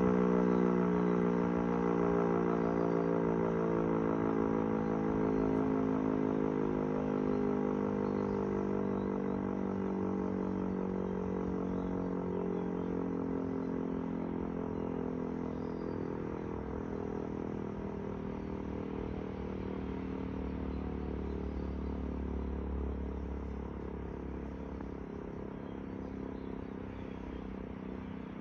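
E57 electromechanical civil-defence siren running down after being switched off, its wail slowly sliding lower in pitch and fading away.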